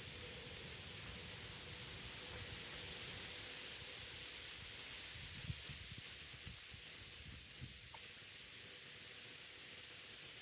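Faint, steady background hiss with a low rumble and a thin steady hum, and two soft knocks, about five and a half and seven and a half seconds in; no chainsaw engine running.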